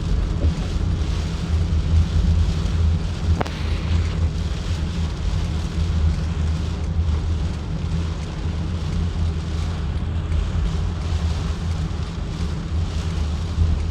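Rain falling, with wind buffeting the microphone in a steady low rumble. There is a single sharp click about three and a half seconds in.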